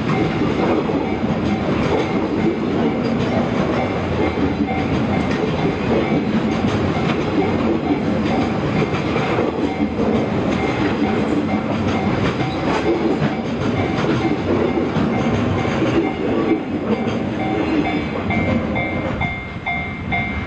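Freight wagons of an EF200-hauled freight train rolling slowly past, wheels clicking over rail joints. A level-crossing warning bell rings steadily over the train noise.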